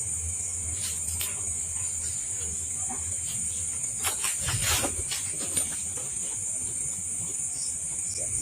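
Steady high-pitched chorus of crickets, with a few soft rustles about four to five seconds in.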